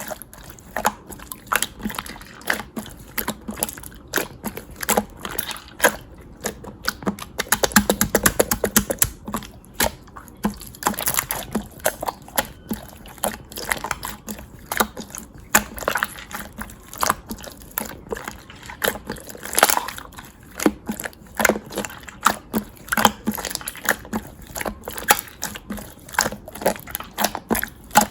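Hands squishing and kneading slime, making irregular sticky clicks and pops, with a quick run of pops about eight seconds in.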